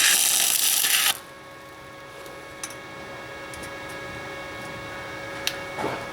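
Titanium Easy-Flex 125 flux-core wire welder arc crackling for about a second at the start as a weld bead goes onto a patch on an exhaust pipe, then stopping. A faint steady hum with a couple of small clicks follows.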